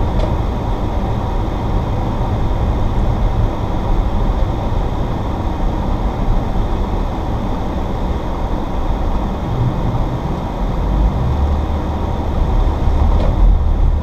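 Inside the cabin of an Audi S4 driving on a snow- and ice-covered road: a steady low drone from the supercharged V6 engine, mixed with tyre and road noise. The engine note grows stronger about eleven seconds in.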